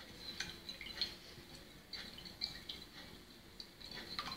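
Wire whisk beating raw eggs in a ceramic bowl: faint, irregular clicks of the whisk against the bowl with wet sloshing of the egg.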